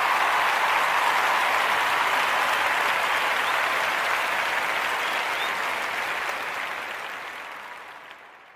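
Applause from a crowd, a dense even clatter of many hands, fading out over the last two or three seconds.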